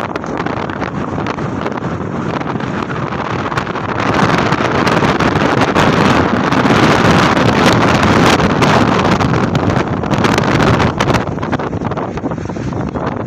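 Strong wind buffeting the microphone, a dense rushing rumble that swells into a louder gust about four seconds in and eases off about eleven seconds in.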